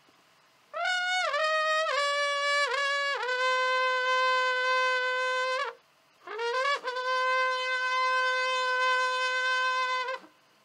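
Hutsul trembita, a long wooden horn, blown in two long calls. The first opens with a few short stepped notes and settles into a held note; after a brief breath, the second glides up into another held note that stops near the end.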